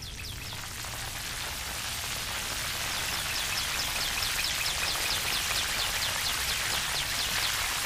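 A steady high hiss, with a rapid regular run of short, falling high-pitched chirps, about four or five a second, from about three seconds in until shortly before the end.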